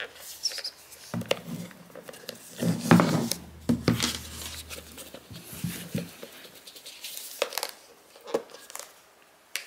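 Fingers picking and tugging at the paper seal of a sealed iPhone 13 Pro box: crinkling, scratching and tearing of paper with light taps, loudest about three seconds in. The seal is not coming off easily.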